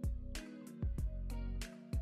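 Background music with a steady drum beat over sustained pitched notes.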